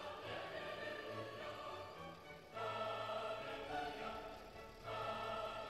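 Slow background music of held, sustained chords, classical in style with a choral or orchestral sound; a new chord swells in about two and a half seconds in and again near the end.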